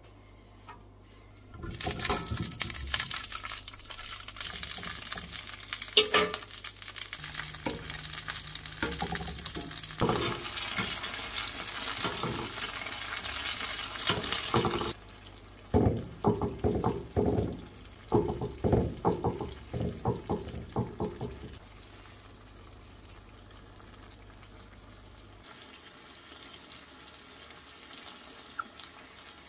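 Cherry tomatoes sizzling and spitting loudly in hot oil in a cast-iron frying pan. About fifteen seconds in the sizzle drops and gives way to a run of short stirring strokes, about two a second, then a quiet simmer.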